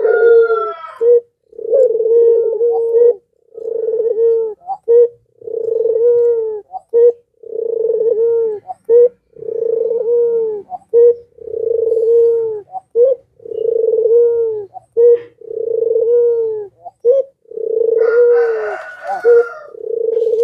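Ringneck dove of the 'puter pelung' variety cooing continuously: a long, low coo repeated roughly every one and a half seconds, each followed by a short clipped note. Near the end a higher, rougher call from another bird overlaps for about two seconds.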